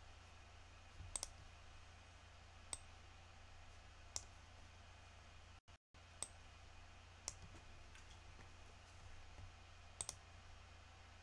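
Near silence over a low steady hum, broken by about six faint, isolated clicks from a computer mouse or keyboard.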